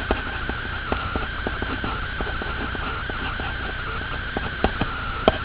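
H pencil sketching on paper: faint, irregular scratches and ticks over a steady hiss with a thin high whine.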